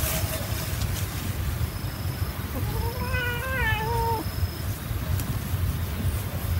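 A kitten gives one long, wavering meow about two and a half seconds in, a protest call while a dog pins and mouths it in rough play. A steady low rumble runs underneath.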